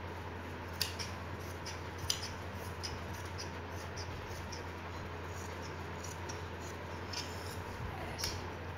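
Scissors snipping through cotton dress fabric in a run of irregular cuts, with sharper blade clicks about a second in, around two seconds in and near the end, over a steady low hum.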